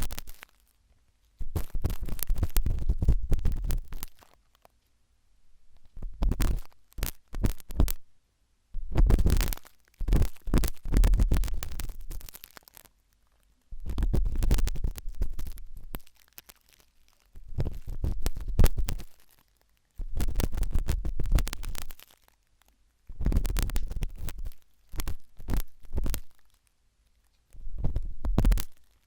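A sharp wooden toothpick scratching and scraping inside an ear during ASMR ear cleaning. It comes in bursts a second or two long, with short silent gaps between them, about every three seconds.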